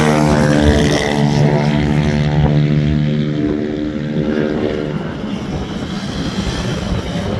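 Small racing scooter and mini-bike engines on track: one engine's note holds a steady pitch for about five seconds, then fades into a rougher mix of engines.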